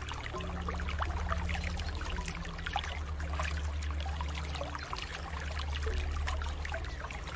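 Water running and splashing steadily, with many small trickling splashes. A low steady hum sits underneath.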